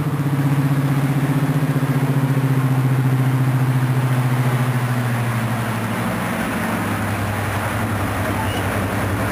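Class 55 Deltic diesel locomotive's Napier Deltic two-stroke engines running with a steady low throb as it rolls slowly past. The sound eases slightly about halfway through.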